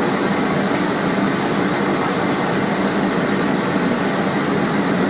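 Steady, even rushing noise of a running air blower, with no hammer strikes.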